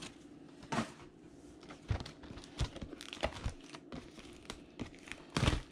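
Trading-card box packaging being handled and opened: crinkling and tearing with scattered sharp clicks, and a louder knock near the end.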